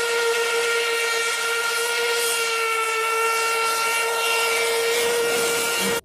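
Steam locomotive whistle blowing one long, steady blast over a hiss of steam, cut off abruptly at the end.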